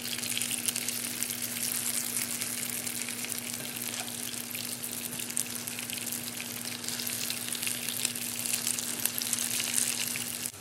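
Tuna fishcakes shallow-frying in hot oil in a frying pan: a steady sizzle full of fine crackles and spatters, with a low steady hum underneath.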